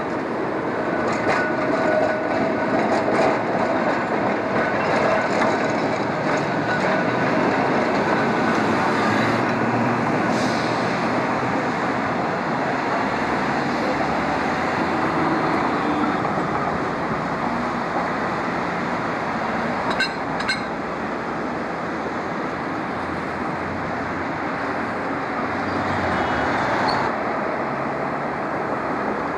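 Streetcars running on street track: a steady rumble of wheels and motors, with a faint steady whine through the first several seconds and a couple of sharp clicks about twenty seconds in.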